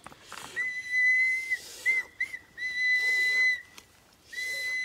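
High, steady whistle tone held in three notes of about a second each, with two short chirps between the first two.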